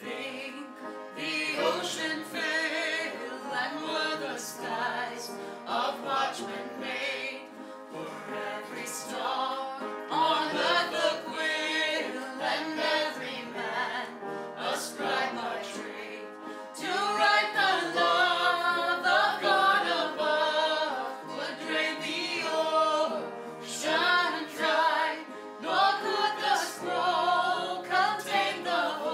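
Worship song in a church service: voices singing with instrumental accompaniment.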